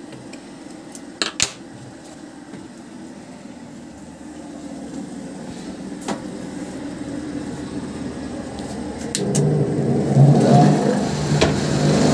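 Shoe-finishing machine starting up: its electric motor and spinning sanding drums hum, building from about four seconds in and becoming a loud, steady hum about nine seconds in. A couple of sharp clicks about a second in, from a small blade trimming the rubber sole edge.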